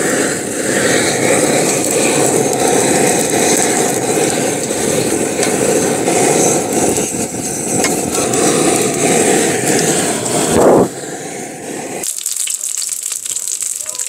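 Butane torch fire lighter on a gas canister blowing a steady flame into charcoal in a grill to get it lit, cutting off suddenly about eleven seconds in. Then, near the end, oil sizzling as green onions are laid on a hot griddle.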